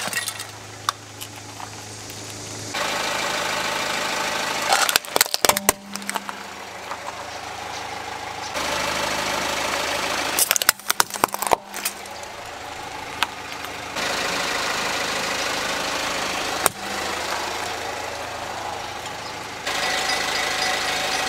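Car engine idling steadily in short cut-together stretches, broken a few times by clusters of sharp cracks and crunches as plastic toys break under the tyre.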